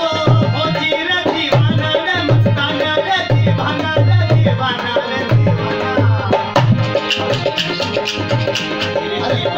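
Rajasthani folk music for a kathputli puppet dance: a hand drum beats a steady rhythm under a bending melody line, with sharp, bright ticks joining in about halfway through.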